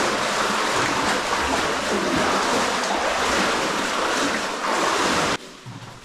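Cave water sloshing and splashing as people wade through it, a steady loud rush that cuts off suddenly near the end.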